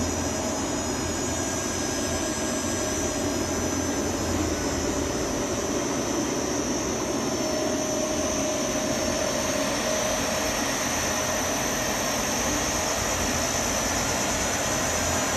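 Delta VFD-B variable frequency drive running, making a steady whirring noise with a thin high-pitched whine over it.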